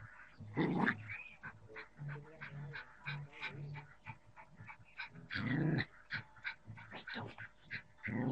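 A small dog growling in a low, broken rumble as it attacks a snake, with three louder snarls: about half a second in, a little past the middle, and at the very end.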